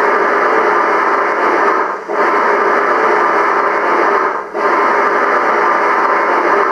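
Sound decoder of a gauge 1 BR 50 model steam locomotive standing still and giving a steady loudspeaker steam hiss that breaks off briefly twice, about every two and a half seconds.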